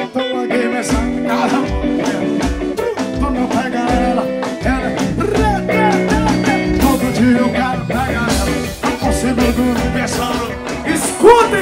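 Live band playing: electric guitar over drums, with a low beat kicking in about a second in, and singing.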